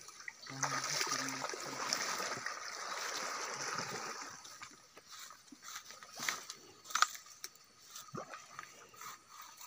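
Water sloshing and splashing as a person wades into a pond, loudest over the first four seconds, then settling into scattered small splashes and drips.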